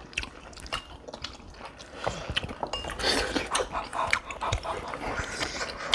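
Close-miked eating: chewing and slurping of saucy rice cakes and beef, wet mouth noises with many small clicks, growing busier about two seconds in.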